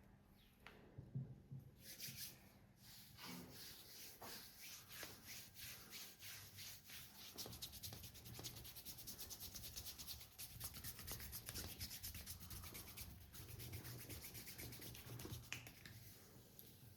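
Faint, quick rhythmic rubbing strokes of a back massage, several a second. They start about two seconds in and stop shortly before the end.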